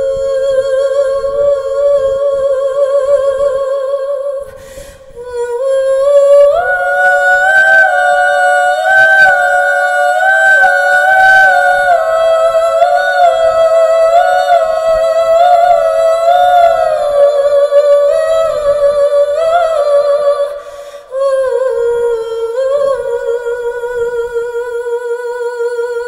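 Wordless female vocalising in a recorded song: a single humming voice holding long notes with vibrato, stepping up in pitch about six seconds in and settling back down after about seventeen seconds, with two short breaks.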